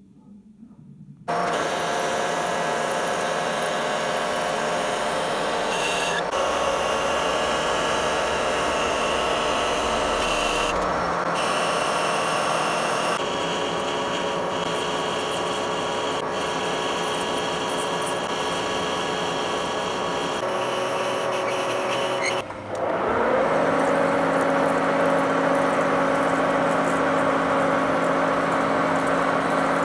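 Metal lathe running while a cutting tool turns a steel shaft, then cuts a trapezoidal thread in it, throwing curled chips. The steady machining noise changes character several times, with a brief break about 22 seconds in.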